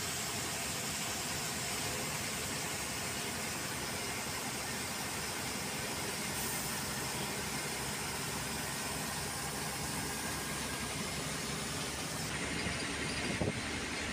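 Steady engine and road noise heard inside the cabin of a moving bus, with a brief knock near the end.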